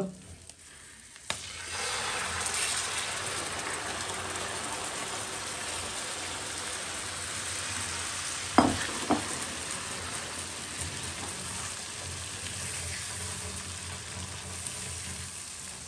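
Yogurt-marinated chicken pieces frying in hot oil and butter with green chillies in a non-stick pan, a steady sizzle that starts about a second and a half in as the chicken goes in. A silicone spatula knocks against the pan twice near the middle.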